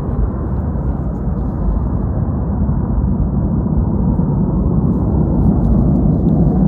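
Distant F/A-18 Hornet twin jet engines making a steady low rumble that grows a little louder about five seconds in.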